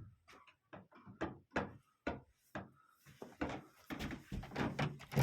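Footsteps and knocks on the wooden floor and fittings of a houseboat: a run of short knocks about two a second, getting busier and louder in the last two seconds.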